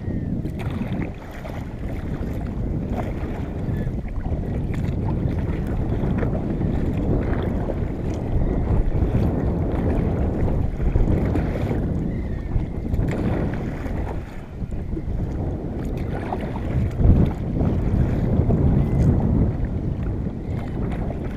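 Wind rumbling on the microphone of a fishing kayak at sea, with the sound of water around the hull, swelling and easing every few seconds.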